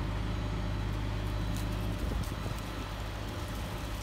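A vehicle engine running, heard sped up: a steady low hum that about halfway through turns into an uneven rumble.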